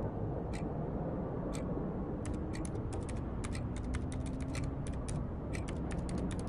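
A clock ticking about once a second, then, from about two seconds in, rapid irregular key clicks of typing on a laptop keyboard, over a low steady hum.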